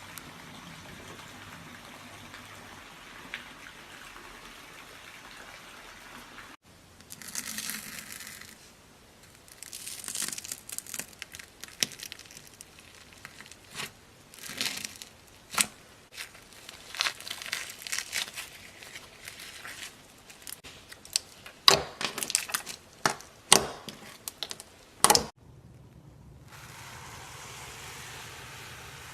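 Slime being squeezed and poked by hand, making crinkly crackling with many sharp clicks and pops, after several seconds of faint hiss.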